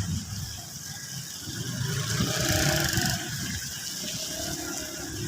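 A motor vehicle passing on a wet street: low engine rumble with tyre hiss that swells to its loudest about halfway through, then eases.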